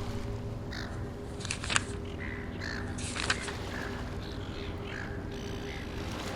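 Birds calling in short, scattered calls, with a couple of sharp clicks, one just before two seconds in and one a little after three seconds in.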